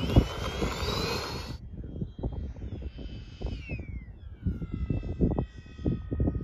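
Twin 80 mm electric ducted fans of a Freewing A-10 foam RC jet: a rising whine as the fans spool up, cut off about a second and a half in. Then a whine that falls in pitch and settles into a steady tone as the jet comes in low. Wind gusts rumble on the microphone throughout.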